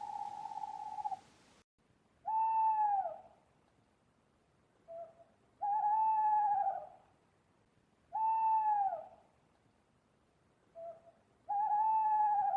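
Owl calls: a steady, quavering trill on one pitch ends about a second in, then four clear hoots follow, each about a second long and arching slightly down at the end, roughly three seconds apart. The second and fourth hoots are each preceded by a short, faint note.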